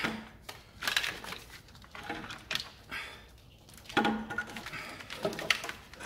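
Irregular clicks, knocks and light rattling as a long cylinder-head section of a diesel engine is lifted and worked out from under the wiring loom, knocking against the loom and nearby engine parts.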